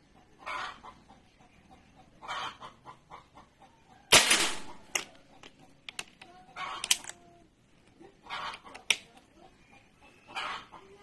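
A single sharp crack from a .22 PCP air rifle firing, about four seconds in; it is the loudest sound and is followed by a brief smear and a few faint clicks. Several short animal calls come and go around it.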